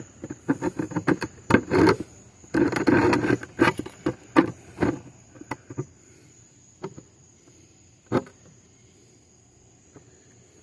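A cicada held in the hand gives its harsh buzzing distress call in short, irregular bursts, densest in the first few seconds. After that come only a few scattered clicks.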